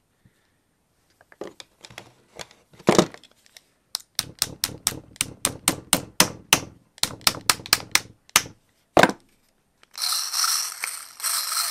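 Small hammer tapping roll pins into the body of a Black & Decker cordless screwdriver: a few scattered taps, then a quick run of taps at about four a second, then one more. Near the end comes about two seconds of noise with no distinct strikes.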